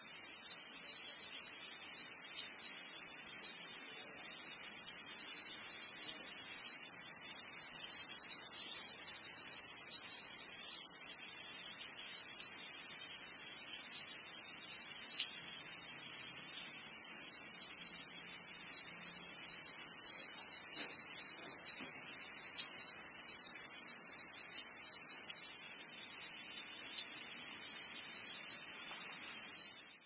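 Leaking hose hissing: a steady, high-pitched jet of escaping pressure, unbroken, fading out right at the end.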